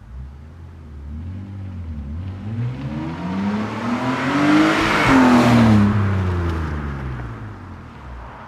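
BMW 330ci's 3.0-litre straight-six with a Magnaflow muffler and the stock resonators: the exhaust note builds up to its loudest about five seconds in, then falls away and fades.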